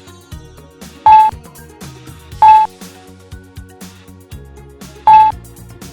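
Quiet background music with three short, loud electronic beeps at one steady pitch. They come about a second in, again at two and a half seconds, and near the end.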